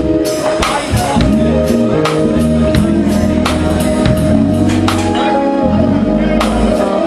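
Live band playing a song: a drum kit keeps a steady beat under bass guitar and keyboards, with sustained pitched notes over the top.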